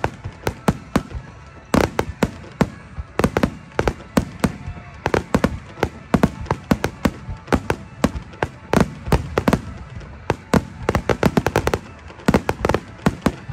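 Aerial fireworks bursting in a rapid, uneven barrage of sharp bangs, several a second. A quick run of cracks comes in tight succession a little before the end.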